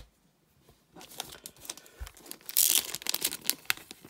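Clear plastic bag crinkling and rustling as hands work it open around a stack of trading cards. It starts about a second in and is loudest about two and a half seconds in.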